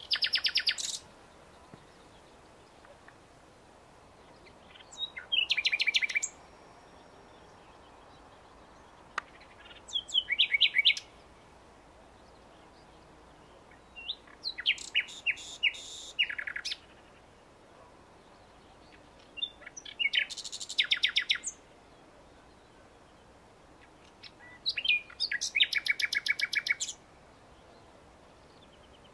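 Common nightingale singing: about six song phrases of a second or two each, separated by pauses of three to four seconds, each phrase a run of fast repeated notes.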